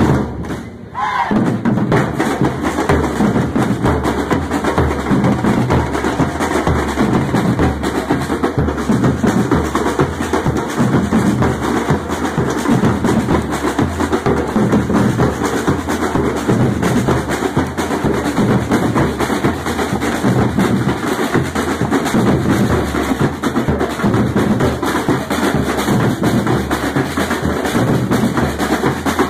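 A batucada-style street drum troupe playing together: large surdo bass drums struck with mallets under smaller drums played with sticks, in a steady driving rhythm that dips briefly about a second in.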